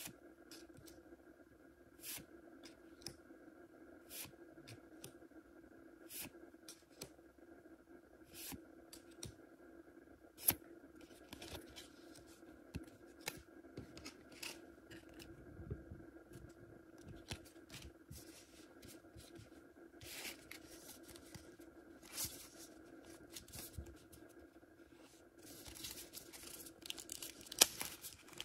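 Hands handling trading cards and their packaging: scattered light clicks and taps over a faint steady hum. Near the end come denser crinkling and tearing of paper and plastic wrapping.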